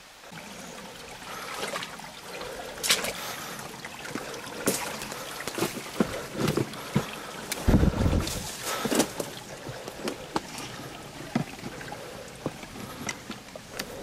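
Small stream trickling over rocks, with irregular footsteps on leaf litter and dead sticks and scattered knocks. A heavier low knock comes about eight seconds in.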